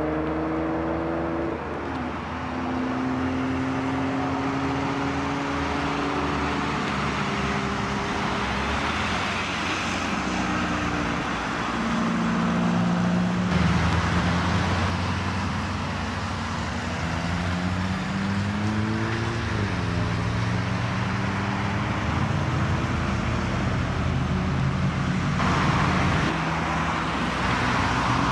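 A line of cars driving past one after another, their engine notes rising and then dropping back several times as they accelerate and go by, over steady road noise.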